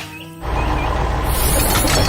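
A few held musical tones, then about half a second in a loud, rough heavy-machinery rumble starts suddenly: a cartoon construction-vehicle sound effect.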